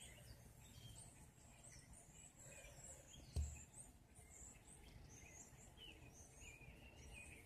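Faint, scattered chirps and short call notes of songbirds in a berry tree, many birds calling at once. A single low bump about three and a half seconds in.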